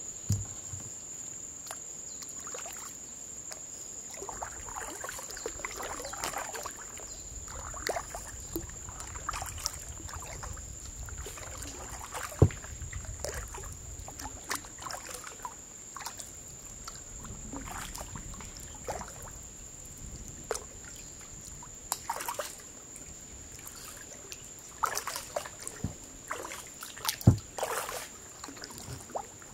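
Kayak paddling on calm water: irregular splashes and trickles as the paddle blades dip and drip, with two sharp knocks, the loudest sounds, at about twelve and twenty-seven seconds in. A thin, steady high-pitched tone runs underneath.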